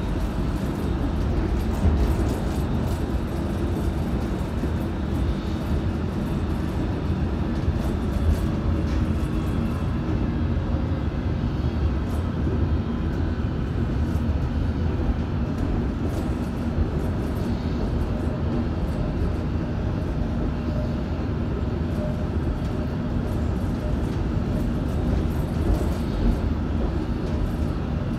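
London Underground S8 stock train running along the line, heard from inside the carriage: a steady low rumble with a few light clicks.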